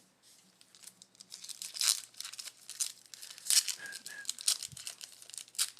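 A Chronicles football card pack wrapper being torn open and crinkled by hand. The crackly rustles come in quick irregular bursts, starting about a second in.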